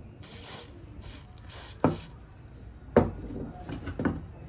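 Hand work on an old pump's parts: two short scraping strokes, then three sharp knocks about a second apart.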